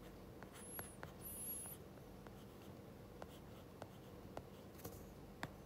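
Stylus tip tapping and sliding on a tablet's glass screen during handwriting: faint, irregular small clicks, with a brief faint high squeak about a second and a half in.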